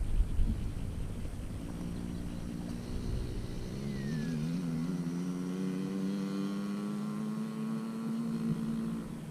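Yamaha PW50 mini-bike's small two-stroke engine running at a steady, even pitch. It settles in after a couple of seconds of low rumble and wavers briefly once.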